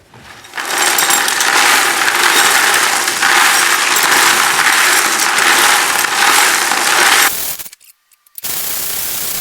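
Steel knife blade being ground on a power grinder: a loud, steady, harsh grinding that starts about half a second in and stops abruptly after about seven seconds. After a brief silence a quieter stretch of grinding follows.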